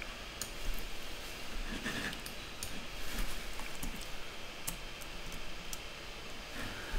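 Faint, scattered clicks and light handling noises over a low, steady background hum.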